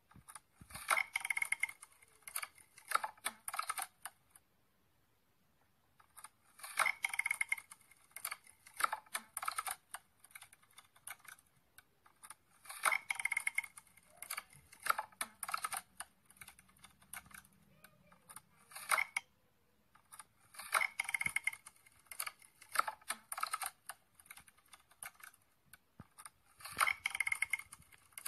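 Looping sound effect from an augmented-reality card app: bursts of dense, dry clicking and crackling, each about three seconds long and repeating roughly every six seconds.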